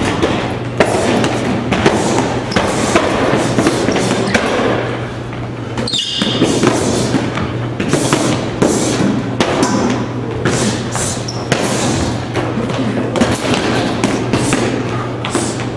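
Punches and kicks landing on hanging heavy bags: irregular thuds and slaps, several a second, from more than one person training at once, with a short high squeak about six seconds in.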